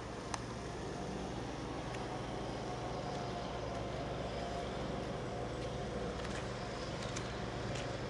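A steady mechanical hum with a low drone and a fainter higher tone over even background noise, unchanging throughout.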